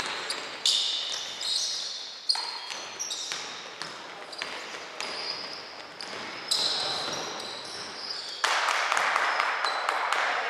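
Basketball game sounds on a hardwood gym floor: sneakers squeaking in short high chirps and the ball bouncing, echoing in the hall. About eight and a half seconds in, a louder, even hiss sets in.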